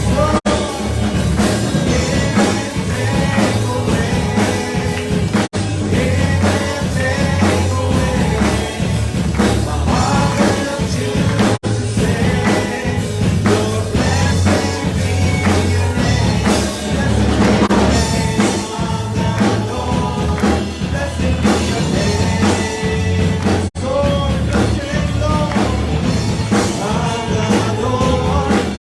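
Live worship band playing with singing, over drums and bass, with a few brief dropouts in the sound.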